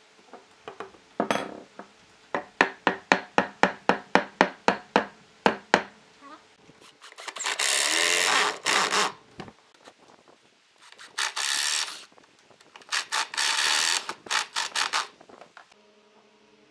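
About a dozen sharp knocks, roughly three a second, as a log rail is driven into its socket in a log post. Then a power drill with a countersink bit bores through the log rail into the post in three long runs, with a few short trigger bursts near the end.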